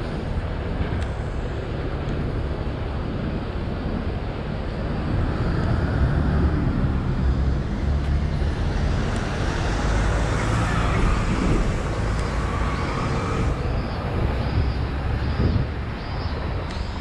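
City street traffic with vehicles passing, louder through the middle stretch, and a faint repeating high chirp in the last few seconds.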